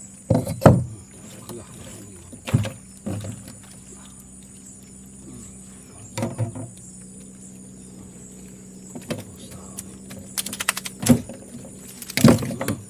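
Scattered knocks and clatters of fishing gear being handled in a small metal boat, with a quick run of clicks about ten seconds in. A steady low hum sits underneath.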